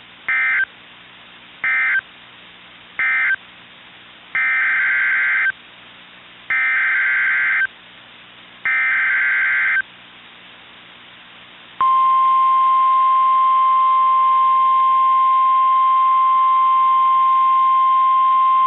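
NOAA Weather Radio EAS signalling: three short screechy digital data bursts, the end-of-message code closing the severe thunderstorm warning. Then come three longer bursts of about a second each, the SAME header that encodes the tornado warning that follows. About twelve seconds in, the loud, steady warning alarm tone begins and holds, over faint radio hiss.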